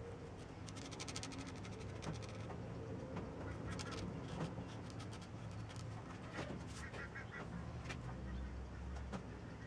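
Quiet handling noise of fingers and a plastic nozzle working on a wooden board, with a quick run of small clicks about a second in. A few short bird calls sound in the background about two-thirds of the way through.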